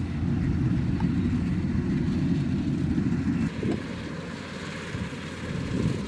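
Kubota DC-105X combine harvester's diesel engine and threshing machinery running as it cuts rice, a steady low rumble. About halfway through, the sound drops a little and turns gusty, with wind buffeting the microphone.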